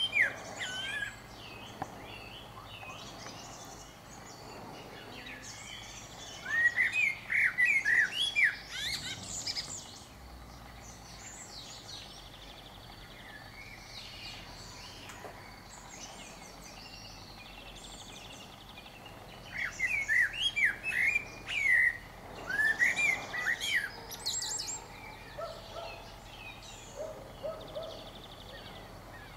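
Male common blackbird singing: two bursts of quick song phrases, one about seven seconds in and one about twenty seconds in, each a few seconds long and ending in higher twittering. Fainter bird notes fill the pauses between phrases.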